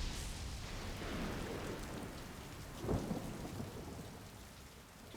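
Thunderstorm: steady rain with a loud thunder crack about three seconds in, the rain easing off near the end.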